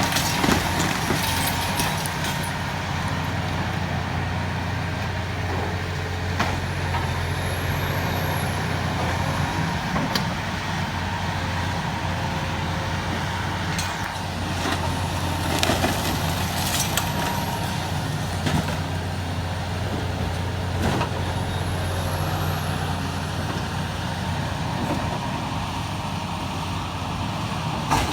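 Heavy demolition machine's diesel engine running steadily under load, with a few sharp knocks and cracks of debris scattered through. A faint high whine rises and falls three times.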